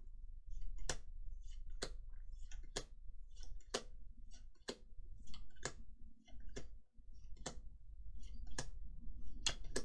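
Trading cards from a booster pack being flipped through one at a time, each card going to the back of the stack with a crisp snap about once a second, with faint rustling of the cards between snaps.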